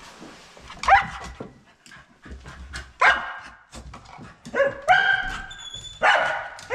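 A dog giving about four sharp, rising, yelping barks, excited by the yellow broom being brought out for his game.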